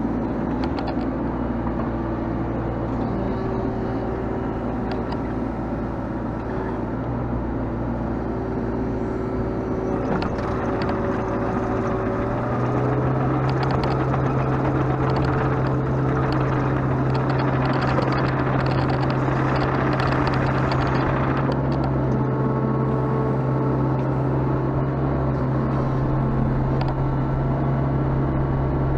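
Sunward mini excavator's diesel engine running steadily under operation; its pitch steps up about twelve seconds in and stays higher. An added rushing noise lies over the drone from about ten to twenty-one seconds as the machine is worked.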